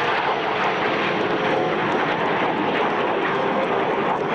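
Jet noise from CT-114 Tutor jet trainers flying past, a steady, even rush.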